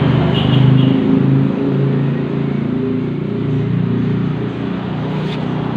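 Suzuki Satria FU 150 single-cylinder engine running steadily, with a slight rise in revs around the first second. The engine has just been rebuilt and runs smoothly.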